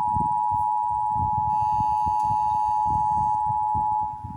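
Emergency Alert System two-tone attention signal (853 Hz and 960 Hz together) sounding steadily from an ATMOS800 weather radio's speaker, the alert tone that opens the National EAS Test. It drops in level near the end.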